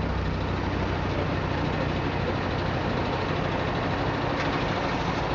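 Southern Railway Battle of Britain class steam locomotive 34067 Tangmere approaching with its train: a steady rumble with a constant low hum underneath and no distinct exhaust beats.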